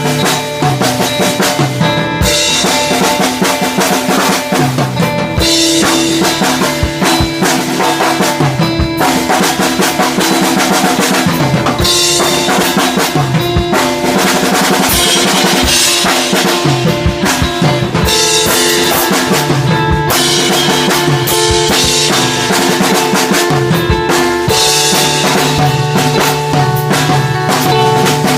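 A band playing loud, continuous music: a drum kit with snare and bass drum keeps the beat under sustained pitched instruments, with cymbal washes every few seconds.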